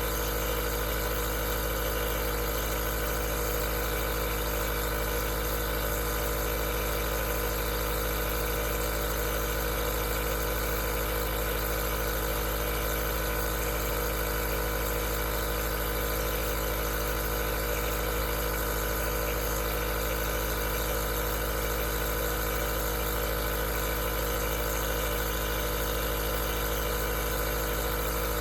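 Aerosol nebulizer running continuously with a steady, unchanging mechanical hum.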